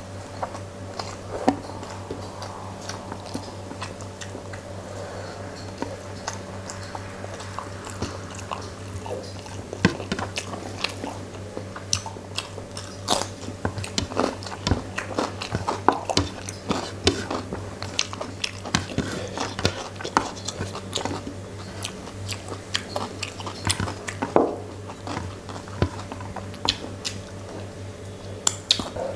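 Close-miked eating: chewing and biting with many irregular wet mouth clicks and small crunches as a mouthful of rice and fish curry is eaten by hand. A steady low hum runs underneath.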